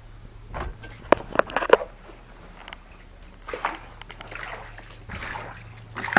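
Footsteps sloshing and splashing through shallow floodwater on a house floor, a few sharp splashes followed by softer swishes, over a steady low hum.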